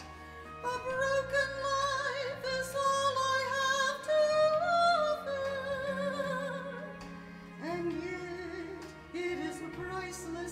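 Church choir singing a slow Easter song with instrumental accompaniment; a high voice with vibrato carries long held melody notes over low sustained chords, and a new phrase begins near the end.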